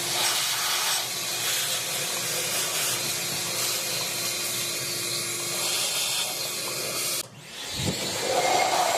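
Air blower blasting a steady rush of air into the engine's spark-plug wells to clear out leaves and debris before the plugs come out. It cuts off about seven seconds in and starts again a moment later.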